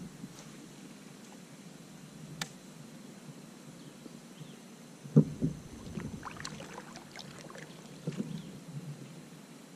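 Knocks on a Bonafide fishing kayak's hull as the paddle and gear are handled. There is a sharp click about two seconds in, then a hollow thump about five seconds in followed by a spell of small rattles, and another thump near the end.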